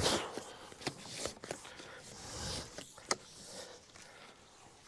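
25mm plastic water pipe being pushed by hand through an underground duct: plastic scraping and sliding against the duct, with a few sharp knocks.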